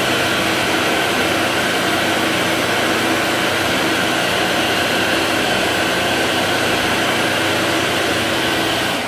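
Supreme electric hand dryer blowing steadily with a motor whine while hands are held under it, beginning to wind down at the very end.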